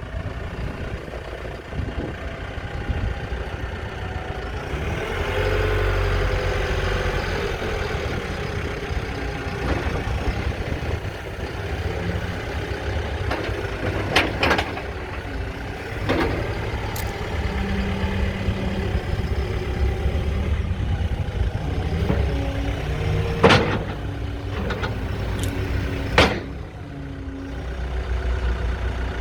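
Lonking 84C backhoe loader's Perkins diesel engine running, getting louder about five seconds in, with several sharp knocks in the second half.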